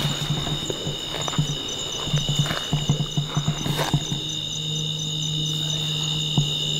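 Night chorus of insects: steady high trills with a faster pulsing one above them, over low croaking from frogs. A single sharp knock comes just before four seconds in.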